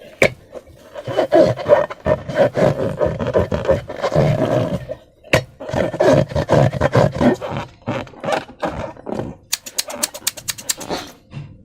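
Hands working slime and a rubber balloon: rough rubbing squeaks of the balloon rubber with sticky, crackling clicks from the slime. Near the end comes a quick run of sharp clicks, about ten a second.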